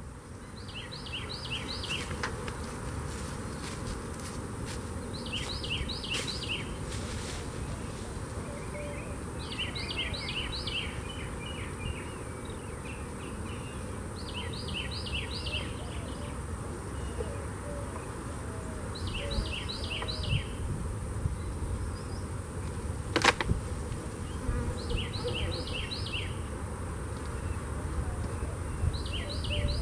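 Honeybees buzzing around open hives in a steady hum. A bird repeats a short song of four or five quick notes every four to five seconds.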